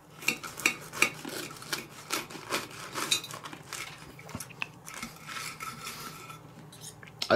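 Table knife and fork sawing through a grilled tortilla wrap on a ceramic plate: irregular scraping and clinks of steel against the plate.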